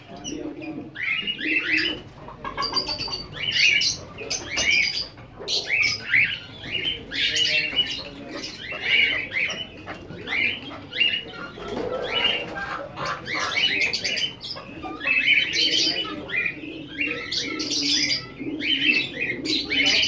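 Caged birds in an aviary of chukar partridges, doves and pigeons calling: short high chirping notes repeated in quick clusters throughout, with low cooing at times.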